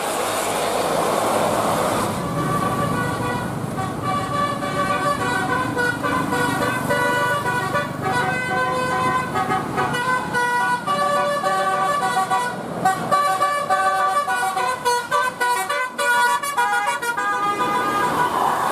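Bus telolet horn, heard from inside the bus cabin, playing a melody of short steady horn notes that change pitch in steps, starting about two seconds in over the bus's road and engine noise.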